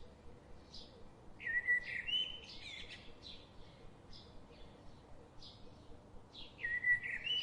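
A songbird singing a short phrase twice, about five seconds apart, each starting on a held whistled note that steps up into a quick flourish, with other short chirps in between.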